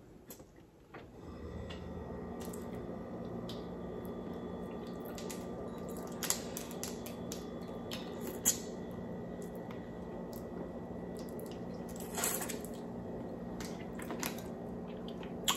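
Wet, squishy eating sounds close to the microphone: chewing and sucking on sauced shrimp and rice, with a few short sharp smacks. A steady low hum comes in about a second in and carries on underneath.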